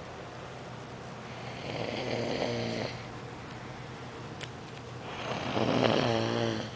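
Loud snoring: two long snores, one about two seconds in and a louder one near the end.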